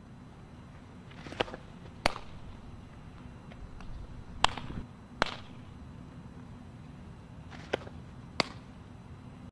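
Softball change-up pitches popping into the catcher's leather mitt: three sharp pops a few seconds apart. Each pop has a fainter click a little under a second before it.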